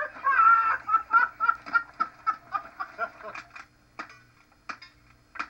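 A person laughing in a run of short, even bursts, then, from about four seconds in, sharp rifle shots in quick succession, about two-thirds of a second apart, at steel targets. Heard as played back through a television speaker.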